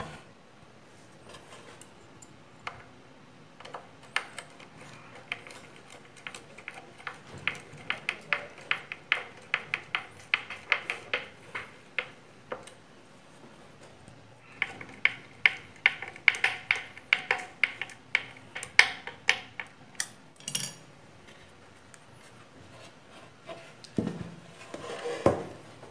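Hand screwdriver driving screws into plywood to fasten a motor mount, with two long runs of rapid metallic clicking. Near the end, a plywood board knocks and scrapes as it is set onto a wooden box.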